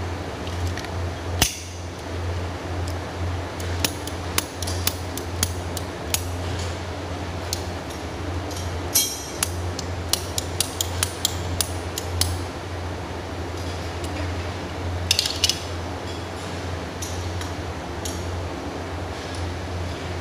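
Small clicks and taps of plumbing fittings being handled and threaded together, clustered in places, over a steady low hum.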